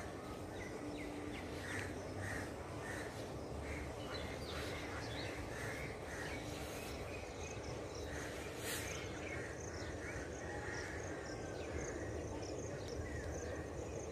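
Birds calling, a string of short separate calls repeated through the stretch over a low steady hiss.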